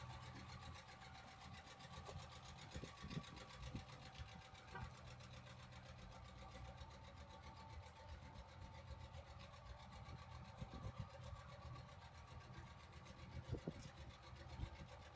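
A 2014 Ram 1500's 5.7L Hemi V8 idling faintly with a fast, light, regular tick: the Hemi tick, which the owner puts down to a wiped-out cam or a collapsed lifter. A few soft thumps come through over the idle.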